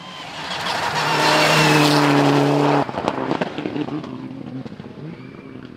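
A Mitsubishi Lancer Evo IX rally car's turbocharged four-cylinder engine approaches at high revs, growing louder and holding a steady high note. About halfway through, the engine note drops off abruptly, followed by a run of sharp crackles and pops as the car pulls away.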